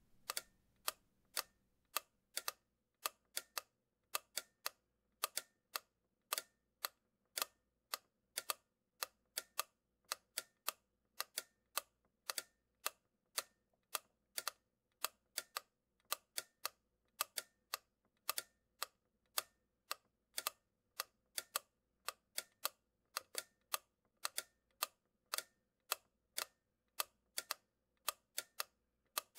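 A run of sharp, dry clicks at an uneven pace, about two to three a second, with no other sound between them.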